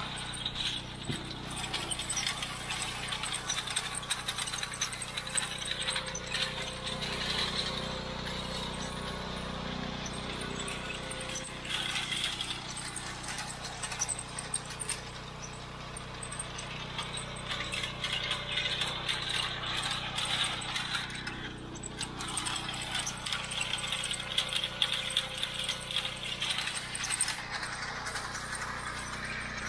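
John Deere 33 hay elevator running, its chain rattling and clicking continuously over a steady low hum.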